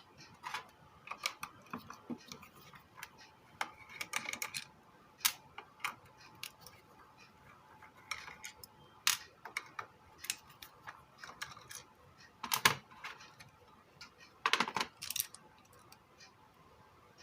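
Scattered clicks, taps and short scrapes of small hand tools on the plastic casing of a Bluetooth speaker being taken apart, with louder scraping about four seconds in and twice near the end.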